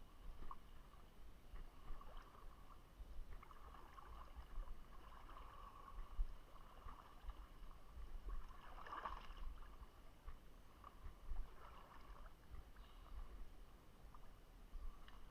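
Faint, scattered water splashes and light knocks, coming and going irregularly.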